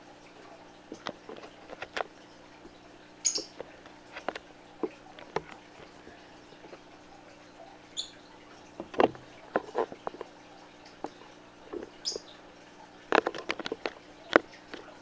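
Budgerigars giving three brief high chirps a few seconds apart, among light clicks and taps on the wire cage top. The taps come thickest near the end.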